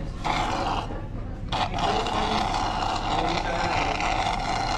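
Slurping the last drops of lassi through a straw from the bottom of a glass: a steady hissing, sucking noise of air and liquid drawn up together, with a short break about a second and a half in.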